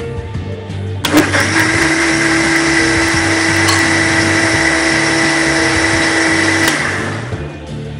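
Electric mixer grinder with a stainless-steel jar blending cooked tomato-soup vegetables into a purée. The motor starts abruptly about a second in, runs at a steady pitch for almost six seconds, then is switched off and winds down.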